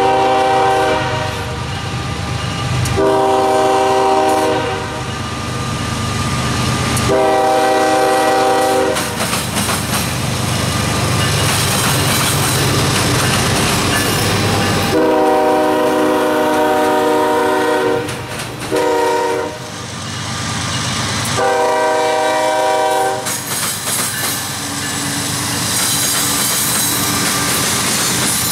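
Union Pacific freight locomotive's multi-tone air horn blowing a series of long blasts, ending long, long, short, long: the grade-crossing signal. Under it the diesel locomotives rumble past, and from about ten seconds in the train's wheels clatter over the railroad diamond crossing.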